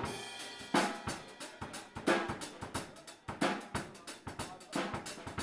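Live electric blues-rock band playing: a drum kit with sharp snare and bass-drum hits on a steady beat under electric guitar and bass guitar.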